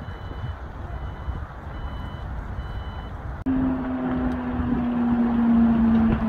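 An electronic warning beeper sounds in evenly spaced short beeps, a little over one a second, stopping about three seconds in. Then a steady engine drone sets in with a strong hum that sinks slightly in pitch.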